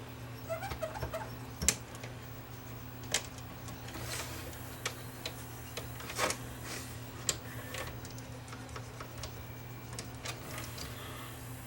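Scattered small clicks and light rubbing from hand-cleaning a VCR's upper head drum with an alcohol-dampened cotton swab, over a steady low hum.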